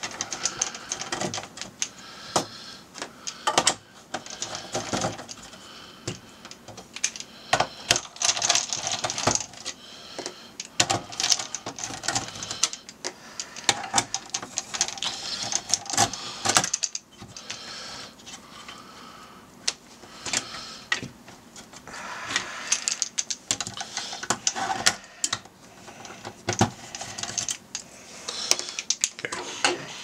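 Small screws being backed out with a hand nut driver: an irregular run of scraping, clicking and ticking as the driver turns in the screw heads. Small metal taps come as the loose screws are set down on the table.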